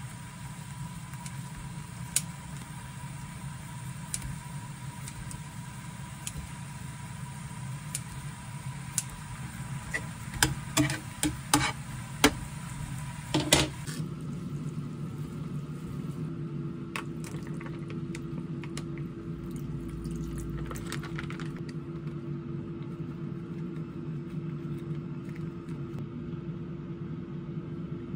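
A pot of meat and broth simmering, with a quick run of sharp metal clicks and clinks from tongs and kitchen utensils between about ten and thirteen seconds in. After that a steady low hum continues.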